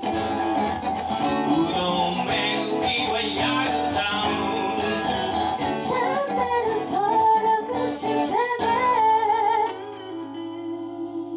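A song for a woman's voice with acoustic and electric guitars strumming, played live. The singing and strumming stop just before ten seconds in, leaving the last chord ringing on more quietly.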